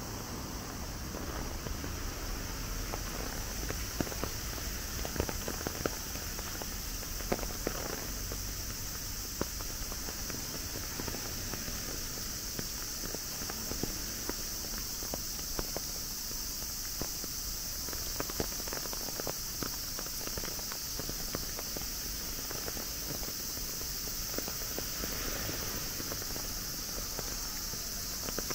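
Footsteps on a wet path with irregular patter, over a steady high-pitched chorus of summer insects.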